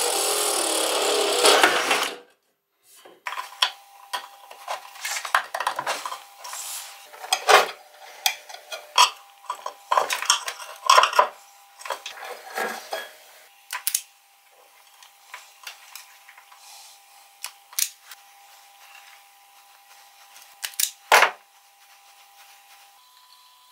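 A power tool runs and cuts off about two seconds in. Then metal parts and hand tools are handled in a workshop, clinking, clattering and knocking irregularly over a faint steady whine, with a sharp metallic knock near the end.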